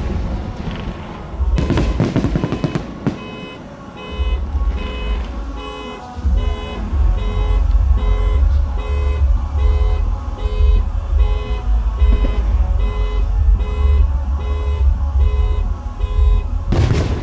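Fireworks go off: a loud bang, then a quick burst of crackling bangs, and another loud bang near the end. In between, an electronic beep repeats about twice a second over a low rumble.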